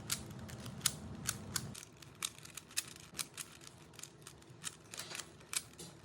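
Rubik's Cube being twisted by hand: a quick, irregular run of sharp plastic clicks as its layers turn.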